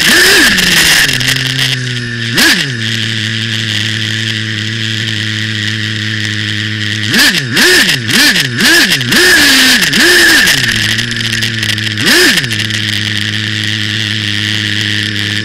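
Two-stroke glow engine of a nitro RC buggy, heard close up from on board. It revs at the start, settles to a steady idle, and is blipped sharply once, then five or six times in quick succession midway, then once more near the end.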